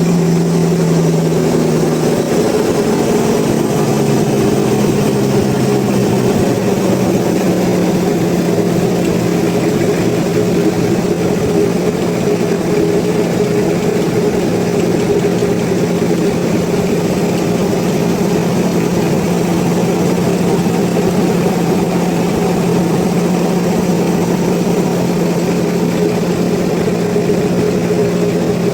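Sawmill machinery engine running steadily under power, with a slight shift in pitch about two seconds in.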